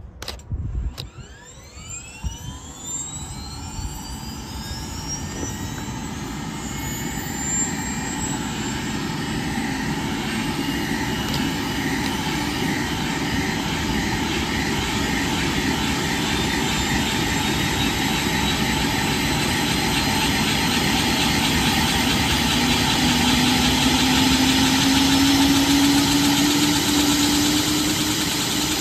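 Airbus H145 helicopter starting up: the whine of its twin turboshaft engines builds and the main rotor spins up, the sound growing steadily louder. Near the end a steady hum comes in, rising slightly in pitch.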